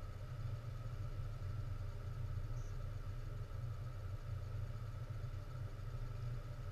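A steady, low engine hum with no sudden events.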